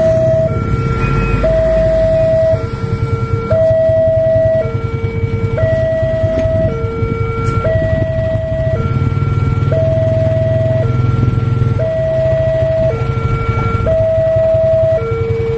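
Electronic two-tone warning alarm of an Indonesian railway level crossing sounding with the barriers down, alternating a higher and a lower tone about a second each, over a steady low rumble.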